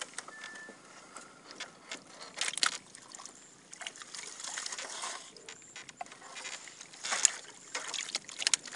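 Water splashing and trickling as a long bamboo pole is worked in the lake from a wooden canoe, with a few louder sudden splashes about two and a half and seven seconds in.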